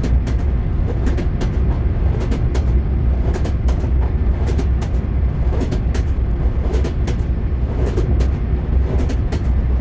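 Train wheels clattering on rails over a steady low rumble. Groups of sharp clicks from the wheels crossing rail joints come about once a second.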